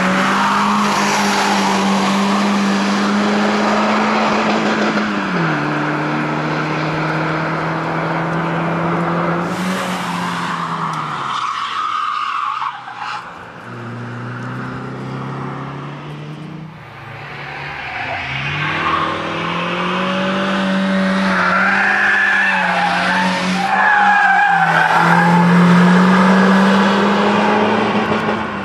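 Peugeot 306's engine held at high revs, the note dropping and climbing again several times as the driver lifts off and changes gear between the corners, with some tyre squeal. It fades for a few seconds in the middle as the car moves away, then grows loud again.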